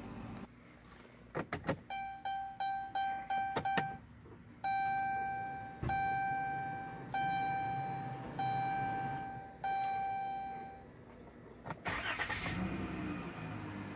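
Dashboard warning chime of a 2016 Chrysler Town & Country ringing one repeated tone, first about six quick chimes then five slower ones roughly a second and a quarter apart, after a few sharp clicks as the ignition is turned. Near the end its 3.6 L V6 cranks briefly, catches and settles into a low idle.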